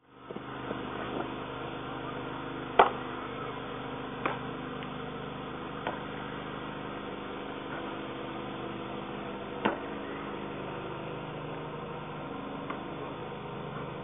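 Steady low background hum from a field camera's microphone, broken by four sharp knocks on a baseball field. The loudest knock comes about three seconds in, with another near the ten-second mark.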